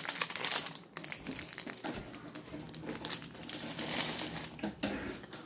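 Plastic candy bag crinkling as it is handled and carried, a dense irregular crackle that is loudest at first and thins out toward the end.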